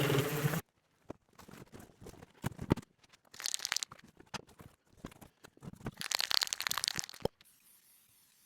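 A steady machine hum cuts off abruptly about half a second in. It gives way to workshop handling noises: scattered clicks and knocks and two bursts of crinkly scraping, the longer one about six seconds in, then faint hiss.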